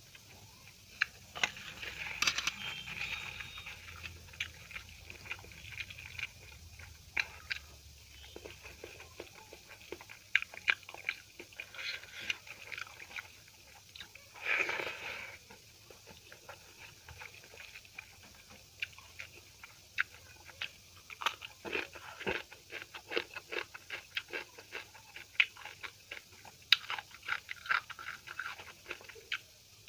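A person eating close to the microphone, chewing a meal of dal, rice, vegetable curries and chapatti: rapid wet mouth clicks and smacks, with a longer noisy sound about halfway through.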